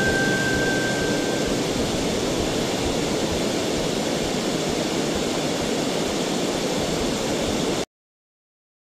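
Steady rushing of flowing river water, cutting off abruptly near the end, with the last of a music track fading out at the start.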